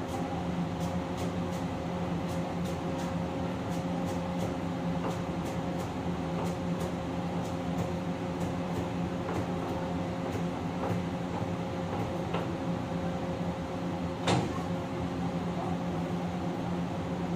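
Steady drone of a commercial kitchen exhaust hood fan, with faint light ticks and one sharp clack about fourteen seconds in.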